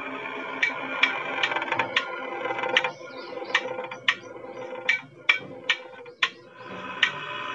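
Background music: sustained chord tones with a sharp clicking beat about two to three times a second.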